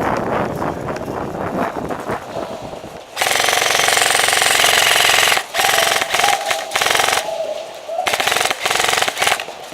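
Airsoft electric gun (a G&P Stubby Killer AEG) firing on full auto: a rapid buzzing chatter that starts about three seconds in, runs for about two seconds, and then comes in several shorter bursts.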